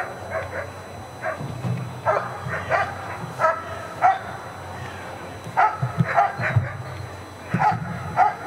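German Shepherd dog barking at the helper in the hiding blind during the hold-and-bark of protection work. The barks come in quick runs of sharp barks, with a short break about halfway through.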